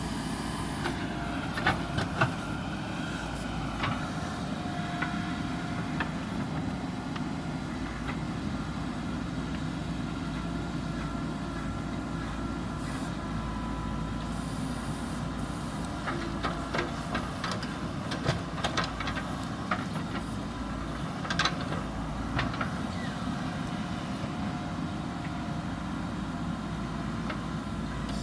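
Diesel engine of a JCB backhoe loader running steadily under work, with scattered sharp clanks and knocks from the machine at work, clustered near the start and again past the middle.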